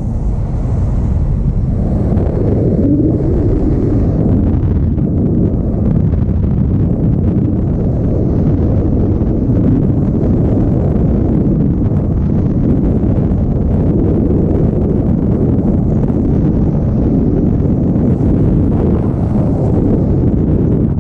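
Loud, steady roar of freefall airflow buffeting the camera's microphone during a skydive.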